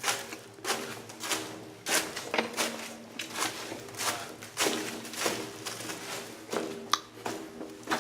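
Footsteps on a rough tunnel floor, a step about every half-second to two-thirds of a second, with a faint steady hum underneath.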